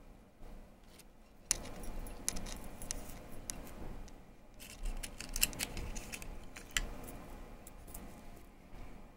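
Gold-tone metal hoop earrings being handled, their hoops and links clinking and jingling lightly, with scattered sharp clicks; the sharpest come about a second and a half in and again around five seconds in.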